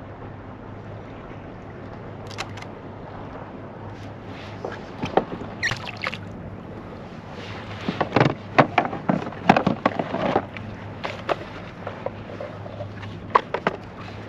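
Knocks, clicks and rattles of fishing gear being handled against a plastic kayak hull, scattered and loudest in a flurry in the middle, over steady wind and water noise.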